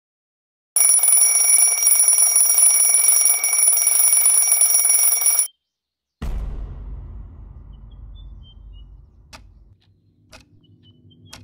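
Twin-bell mechanical alarm clock ringing loudly for about five seconds, then cutting off abruptly. Shortly after comes a low thud with a rumble that fades away, followed by a few faint clicks.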